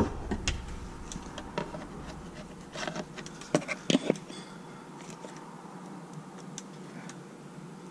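A few light clicks and scrapes of a screwdriver prying a taped-down RC receiver loose inside its plastic receiver box, mostly in the first half, over a steady faint buzzing hum.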